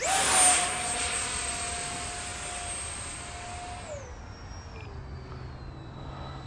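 64 mm electric ducted fan of a 3D-printed RC J-10 jet in flight: a loud, high-pitched whine over rushing air. About four seconds in, the whine falls in pitch and settles lower and quieter.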